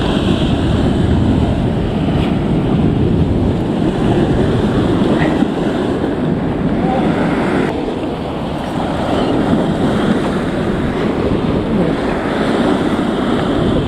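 Steady rushing noise of wind and sea on a boat, with wind buffeting the microphone.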